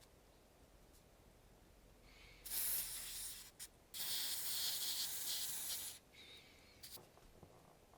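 Two bursts of spraying hiss that start and stop abruptly: the first lasts about a second and starts a little over two seconds in, the second lasts about two seconds.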